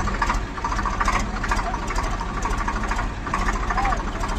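Tractor's diesel engine running steadily with a fast, even throb.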